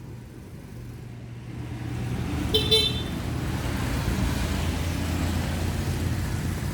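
Bulldozer's diesel engine running steadily, growing louder about two seconds in, with two brief high squeals or toots close together near the middle.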